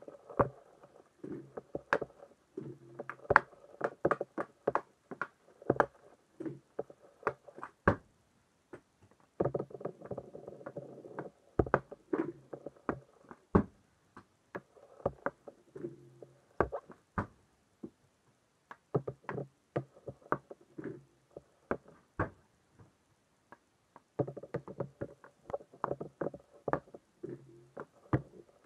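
Hockey stick blade tapping and clacking against a puck in quick, irregular strokes while stickhandling on a smooth synthetic floor. There are stretches of the puck and blade scraping across the surface, and now and then a single sharper crack.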